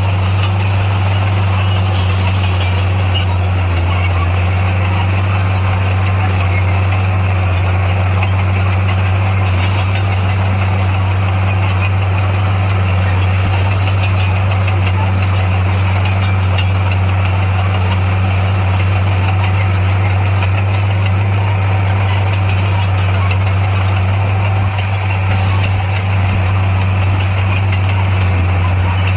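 Bulldozer's diesel engine running at a steady pitch, with a strong, even low hum.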